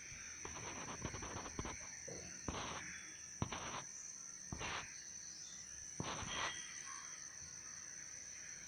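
Steady, high-pitched insect chirring, with about five short crunching scuffs of footsteps on gravelly soil, the loudest a little over three seconds in.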